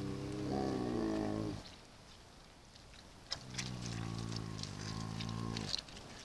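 A large animal calling: two long, low, drawn-out calls, the first ending shortly after the start and the second starting about three and a half seconds in, each held at a steady pitch for about two seconds.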